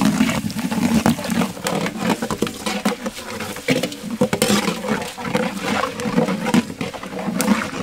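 Black pepper and whole spices sizzling and crackling in hot cold-pressed sesame oil in a large aluminium pot, with many quick pops over a rough low rumble.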